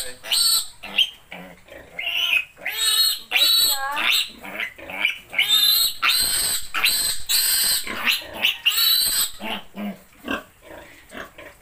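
Ten-day-old piglet squealing loudly in a rapid series of high-pitched shrieks while it is held for a vitamin injection, a typical distress response to handling. The squeals give way to fainter short squeaks about nine and a half seconds in.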